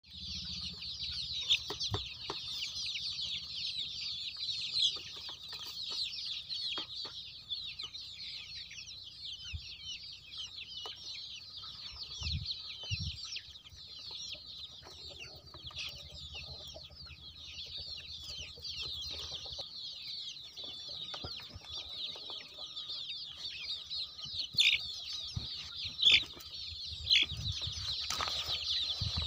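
A large flock of young country chickens peeping constantly, many high chirps overlapping into one chatter. A few short sharp knocks stand out, the loudest near the end.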